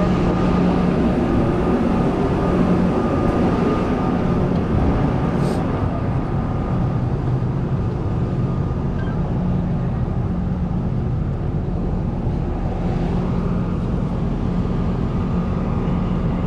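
Heavy diesel engine running steadily, with a constant low hum and a thin steady whine above it.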